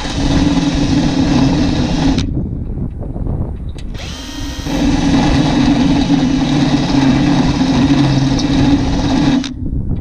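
Handheld power tool running at steady speed in two runs, about two seconds and then about five and a half seconds, spinning up at the start of the second and cutting off abruptly, used to get fasteners out of a pickup body during disassembly.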